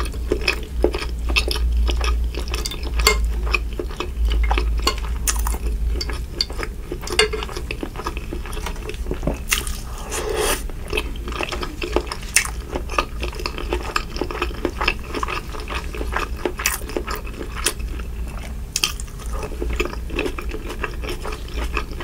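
Close-miked wet chewing and lip smacking of a buttery seafood boil (boiled potato and shrimp), with a metal spoon now and then clinking and scraping against the glass baking dish, over a steady low hum.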